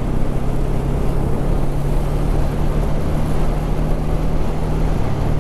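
Motorcycle engine running steadily at cruising speed, mixed with wind and road noise; the engine note shifts slightly near the end.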